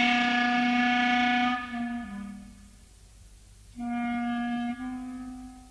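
Solo woodwind instrument playing short phrases of held notes: the first starts suddenly and steps down in pitch twice, and after a pause of about a second a second phrase of two held notes follows.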